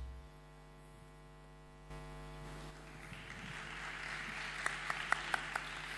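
A steady electrical mains hum from the stage sound system, with the tail of the entry music dying away at the very start. From about halfway in, light audience applause builds, with a few distinct hand claps near the end.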